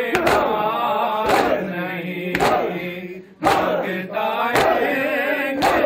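A group of men chanting an Urdu noha (mourning lament) together in a slow sung melody, led by one voice at a microphone. Sharp chest-beating slaps (matam) land in a steady beat about once a second.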